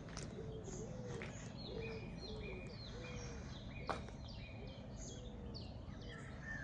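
Birds calling over a steady low background rumble: a repeated short low note about twice a second, with higher chirps above it and a couple of sharp clicks.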